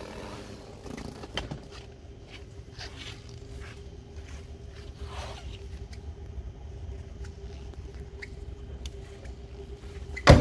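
Faint rustling and scraping over a steady low hum, then near the end the driver's door of a 1967 Chevrolet Impala is pushed shut with one loud slam.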